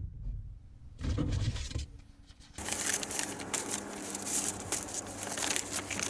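A metal rural mailbox being opened and envelopes taken out and handled: low thuds near the start and again about a second in, then from about two and a half seconds a steady rustle of paper with small crackles.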